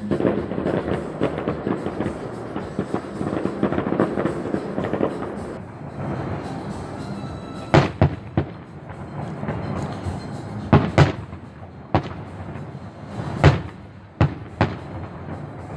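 Music plays in the background, then fireworks go off, several sharp bangs spaced unevenly over the last eight seconds or so.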